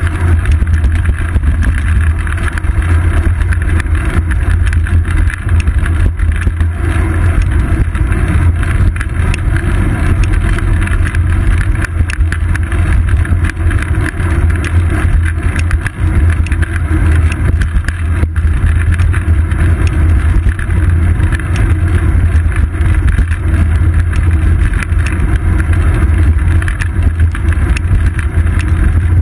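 Steady, loud wind rumble and road noise from a bicycle riding along asphalt, picked up by a seat-post-mounted action camera and heaviest in the deep low end.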